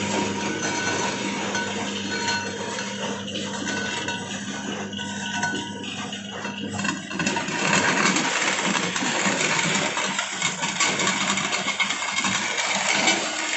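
Motor-driven roller clay crusher running with a steady hum. About halfway through it grows busier and louder with small irregular clicks as clay is fed in and crushed between the rollers.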